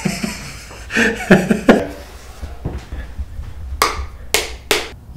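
A few brief bursts of a person's voice about a second in, then three sharp wooden taps in quick succession near the end as a wooden massage tool is handled. A steady low hum runs underneath.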